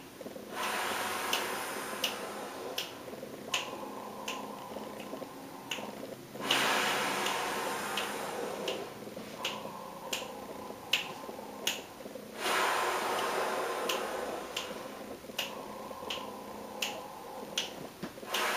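Steady metronome clicking, about three clicks every two seconds, under long, audible breaths drawn in and pushed out through a wide-open mouth, paced at four clicks in and four clicks out.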